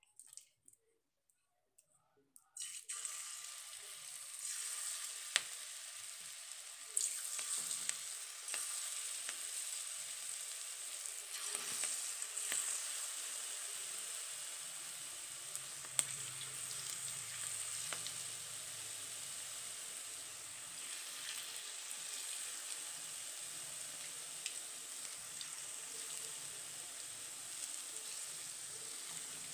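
Cabbage pakoras deep-frying in hot refined oil in a kadai. A steady sizzle starts about three seconds in as the batter goes into the oil, with a few sharp clicks scattered through it.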